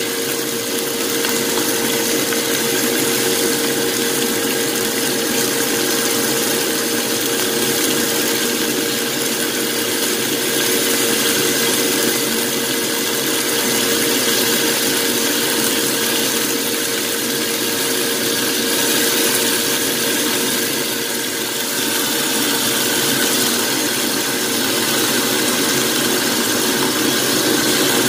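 Strips of pork sizzling in hot oil in a frying pan, a steady hiss, with a constant mechanical hum and tone under it.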